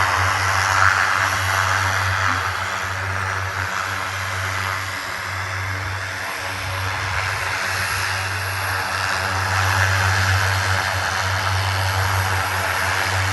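Eurofighter Typhoon's twin jet engines running steadily on the ground, a low hum under an even hiss.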